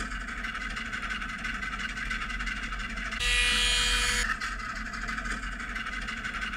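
Intro sound effects for an animated logo: a steady noisy rush, with a louder, brighter swell carrying a few steady tones about three seconds in that lasts about a second.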